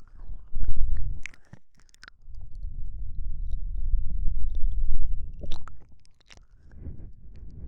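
Close-microphone ASMR mouth sounds: soft wet clicks and smacks scattered over low, rumbling swells of breath right on the microphone.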